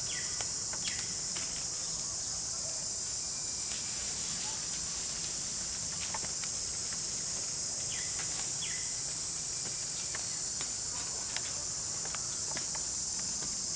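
Steady high-pitched chorus of insects, with scattered faint clicks and a few short chirps.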